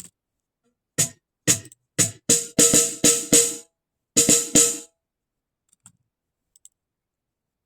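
Snare drum struck in a short pattern of about nine sharp, bright hits in two groups, each with a short ringing tone, ending about five seconds in. A couple of faint clicks follow.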